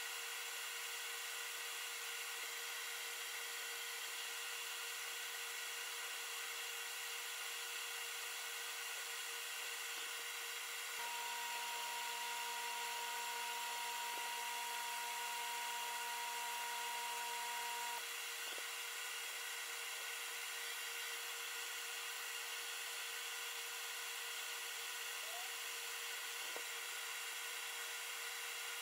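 Steady air hiss from a gravity-feed spray gun spraying lacquer clear coat, over a constant hum. A second, lower hum comes in about eleven seconds in and cuts off about seven seconds later.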